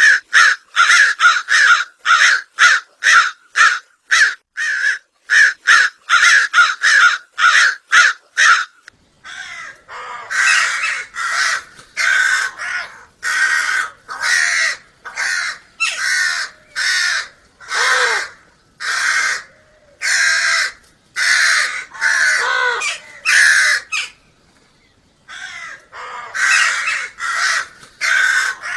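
Crows cawing: a fast run of short caws, about three a second, for the first nine seconds, then longer caws at about one a second, with a short pause near the end.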